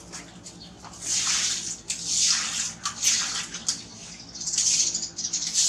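Baby monkey screeching in several high, hissy bursts about a second apart while it is pinned and mouthed by playing dogs.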